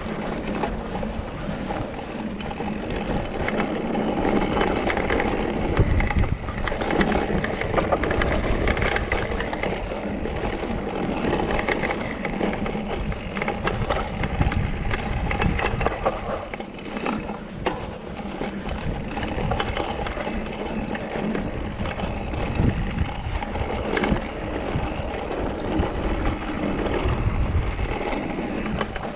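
Mountain bike riding down a dirt singletrack: a steady rumble and crunch of knobby tyres on dry dirt and loose stones, with frequent knocks and rattles from the bike over bumps.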